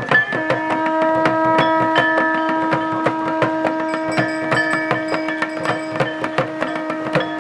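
Dhol and damau drums beating a fast, continuous rhythm while a conch shell is blown in one long steady note that begins just after the start and is held throughout.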